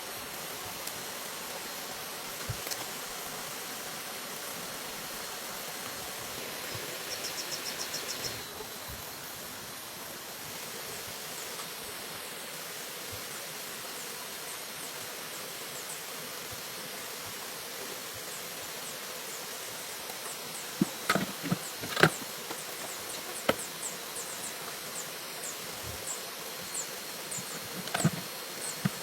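Steady outdoor insect hiss with a quick run of high ticking and many brief high chirps. Through it come a cluster of sharp knocks about two-thirds of the way in, the loudest sounds here, and one more knock near the end.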